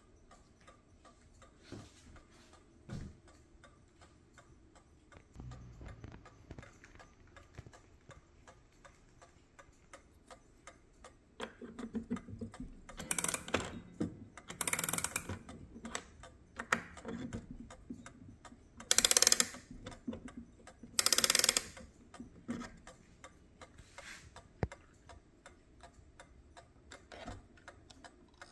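8-day cuckoo mantel clock with a combined mainspring-and-fusee movement, ticking steadily. About halfway through, a key winds the movement: four louder bursts of clicking over about ten seconds.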